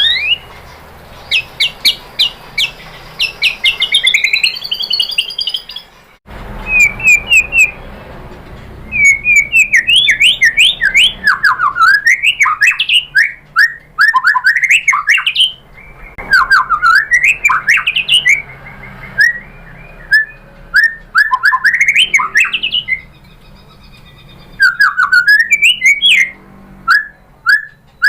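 White-rumped shama (murai batu) singing: loud, fast strings of short notes sweeping up and down in pitch, phrase after phrase, with an abrupt break about six seconds in.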